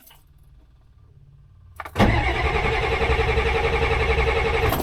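The 1986 Ford F250's 6.9L diesel being cranked by its starter: a loud, rhythmic cranking sound that begins suddenly about two seconds in and cuts off after about three seconds. The starter now turns because a jumper wire bypasses the failed clutch safety switch.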